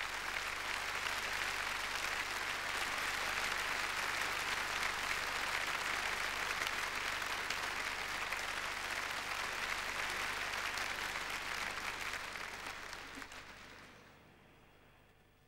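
Large hall audience applauding steadily. The applause dies away over the last few seconds.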